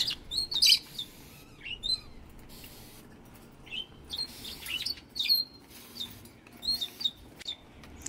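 Caged pet parrots (cockatiels and budgies) chirping in short, scattered calls, some rising and some falling in pitch.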